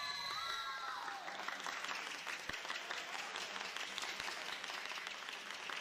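Spectators clapping after a table tennis rally, with a shouted cheer fading out about a second in.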